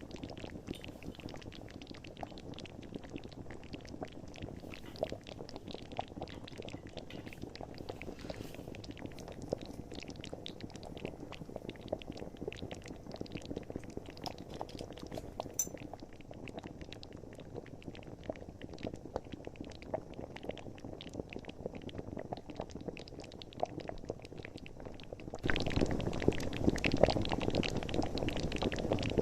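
Baking soda and vinegar with dish soap fizzing in a bottle: a steady crackling hiss of bursting bubbles as the foam erupts. It turns markedly louder near the end.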